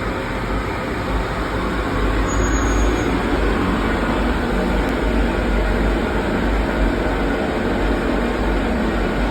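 Fulton boiler and boiler-room machinery running, a steady loud mechanical noise with a deep low hum.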